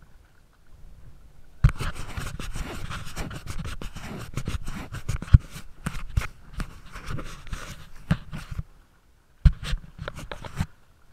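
Close, loud scratching and scraping noise with several sharp knocks, in two stretches separated by a short pause.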